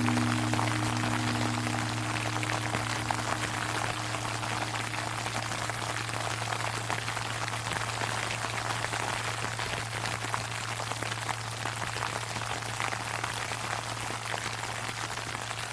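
Sleet pattering steadily on an umbrella, under the long low hum of a large Japanese temple bell dying away after a strike. The bell's higher tones fade out about halfway through, while its deep hum carries on.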